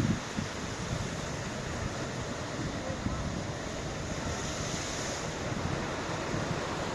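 Ocean surf washing steadily, with wind buffeting the microphone in low gusts. A brighter hiss of wash swells up about four seconds in.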